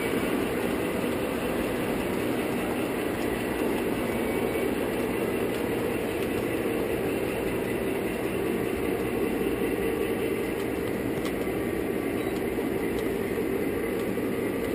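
O-scale three-rail model train running steadily, heard from a camera riding on the flat car it pushes: an even rolling rumble of the wheels on the track with a faint steady hum.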